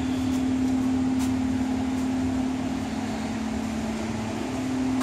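Electric box fans running, a steady rush of air with a constant low hum, and a few faint clicks.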